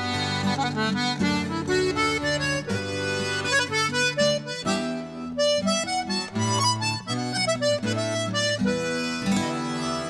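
Background music: a button accordion playing an Irish traditional tune, quick runs of notes over held low notes.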